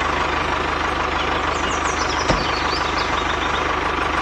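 A small engine idling steadily with a fast, even pulse, and a single click about two seconds in.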